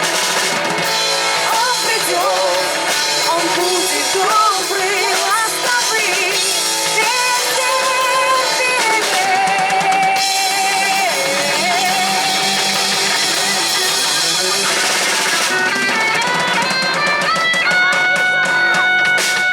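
Live rock band playing an instrumental passage: a wavering lead melody over electric guitar and drum kit, settling into a long held note near the end.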